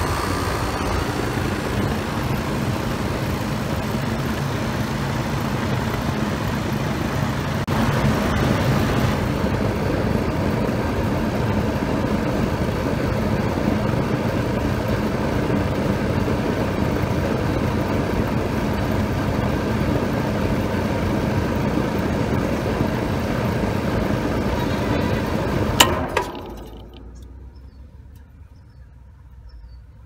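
Rheem outdoor condenser unit running steadily, its fan and Copeland compressor on. About 26 seconds in a sharp click comes as the new contactor drops out, and the unit shuts off, the fan winding down within a second. This shows the replacement contactor now releases when the thermostat is turned off.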